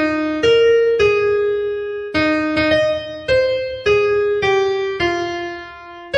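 Background keyboard music: a slow piano-like melody of single struck notes, each ringing and fading before the next.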